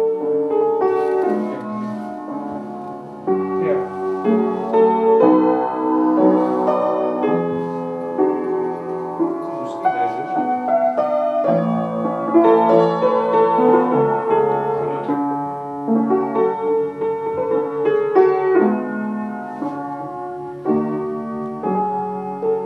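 Solo acoustic piano playing a flowing classical-style piece, notes following one another quickly without a break.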